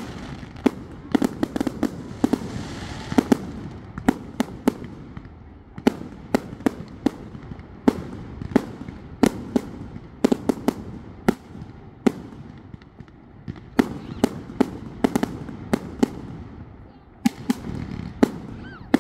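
Aerial fireworks going off: many sharp bangs and pops from shells bursting overhead, coming irregularly and often in quick clusters, with a couple of short lulls.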